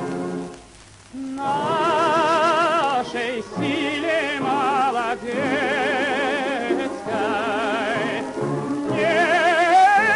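Soundtrack music: after a short break about a second in, a high soprano voice sings long notes with strong vibrato, in several phrases, over orchestral accompaniment.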